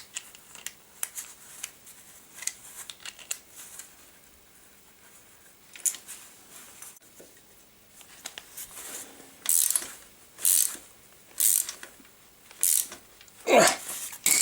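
Ratchet socket wrench clicking in short rasping strokes about once a second while a bicycle crank fixing bolt is tightened, after scattered small metallic clicks and taps. A louder, lower burst comes near the end.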